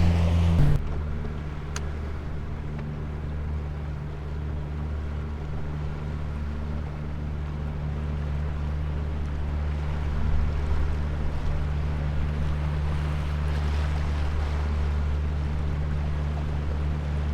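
Outboard jet-drive boat motor running steadily under way, with water and wind noise. Less than a second in, the engine drops from a higher throttle to a lower, even running speed.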